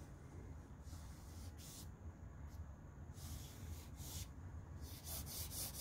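Soft pastel stick rubbing across pastel paper: a few separate scratchy strokes, then quick short back-and-forth strokes near the end, over a low steady hum.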